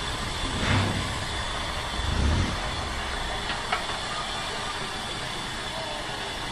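JNR Class 8620 steam locomotive No. 8630 standing at rest and hissing steam, with two louder gusts about a second and a half apart near the start.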